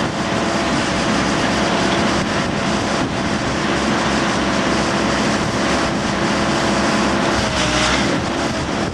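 A heavy machine's engine running steadily at an even pitch, as on earthmoving equipment at an excavation.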